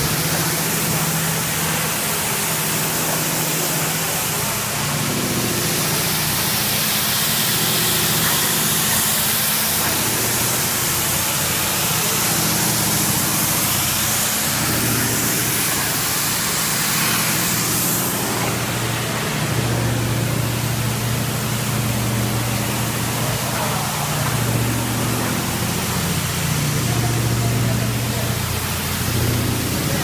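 Automatic rug washing machine running: electric gear motors humming under a steady hiss of water spraying from the rinse nozzles onto the rug. The hum drops lower and grows stronger about two-thirds of the way through.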